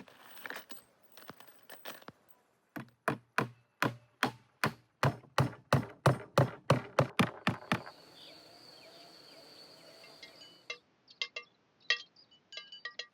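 Knife chopping quickly on a wooden cutting board, a steady run of about three to four sharp strokes a second lasting several seconds. A few light clinks follow near the end.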